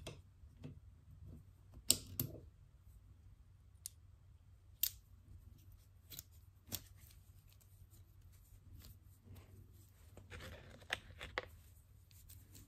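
Light handling sounds on a workbench: scattered single clicks and taps, a second or more apart, with a short busier patch of rustling and tapping about ten seconds in.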